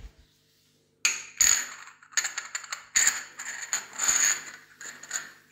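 A palm and fingertips rubbing and sliding across porcelain floor tiles, catching on the raised edges and grout joints, in a run of short scraping strokes starting about a second in. The catching marks height steps between unevenly laid tiles.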